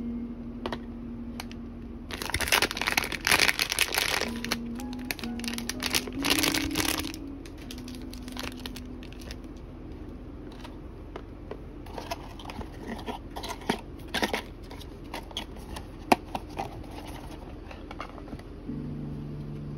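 Blind-box packaging rustling and crinkling in two loud bursts, about two and six seconds in, then light taps and clicks as small cardboard boxes are handled and set down, over quiet background music.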